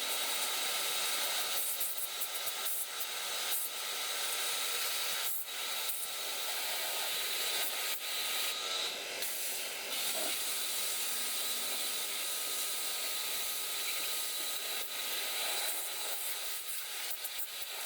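A steady, high-pitched hiss from a pressurized jet, such as an air blow gun or a spray nozzle, used in cleaning a car's air-conditioning system. A few brief breaks interrupt it.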